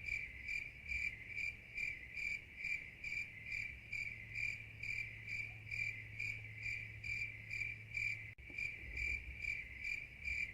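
Cricket chirping at an even pace, about three short high chirps a second, with all speech cut out: an edited-in "crickets" sound effect.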